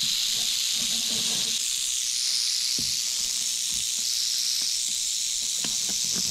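Timber rattlesnake rattling its tail in a steady high buzz. A few faint knocks and clicks come through, more of them near the end.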